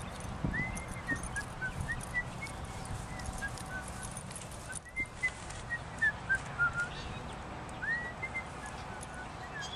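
Three phrases of short, clear whistled notes, each opening with a quick upward sweep and then stepping down, over a steady outdoor background hiss and rumble.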